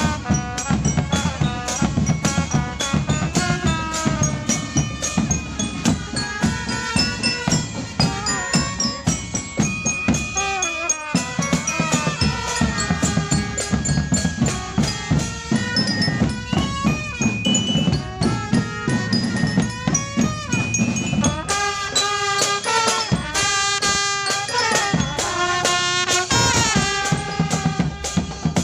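Marching drum band playing: bass drums, snare drums and clashing cymbals keep a fast, steady beat under a melody on mallet bells. The low drums drop out for a moment about a third of the way in, and again for several seconds near the end, leaving the bell melody on its own.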